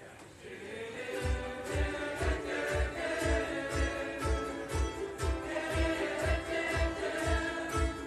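Ukulele band playing live, with several women singing together over strummed ukuleles. The music is quiet for about the first second, then a steady low beat of about two a second comes in.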